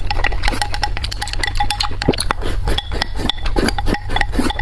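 Eating sounds up close: a utensil clinking against a dish with short ringing tones, among many quick wet clicks of chewing, over a steady low hum.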